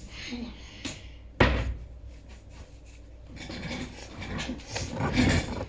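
A sharp knock about a second and a half in, with a smaller click just before it, followed by quieter handling noises.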